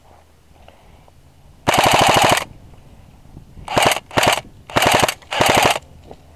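Airsoft rifle firing on full auto in five bursts of rapid, evenly spaced shots: one longer burst about two seconds in, then four short bursts close together.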